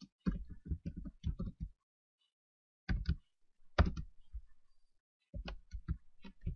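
Computer keyboard typing: a quick run of keystrokes, a pause of about a second, two single keystrokes, then another short run of keystrokes near the end.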